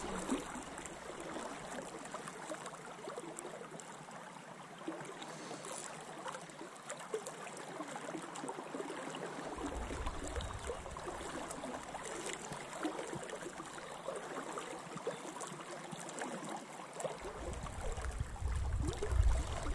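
Steady rush and gurgle of a river in spate, flowing hard around the wading angler. A low rumble comes in briefly about halfway and again near the end, growing louder at the close.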